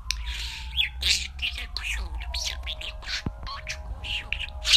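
Budgerigars chattering: rapid, high chirps and squeaks with short gliding notes, over a steady low hum.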